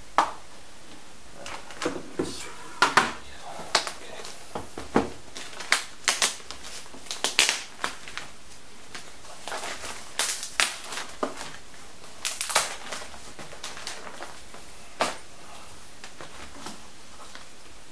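Protective plastic wrapping sheet being pulled open and off a new laptop by hand: irregular sharp crinkles and crackles, dying down near the end.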